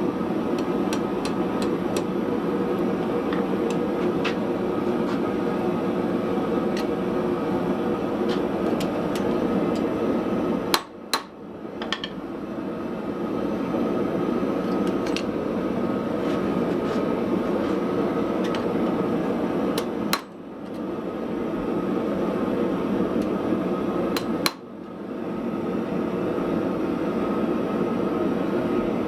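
Light, irregular hammer blows on hot steel at a small anvil, many in the first third and sparser later, over a steady roar. The roar cuts out abruptly three times and builds back up each time.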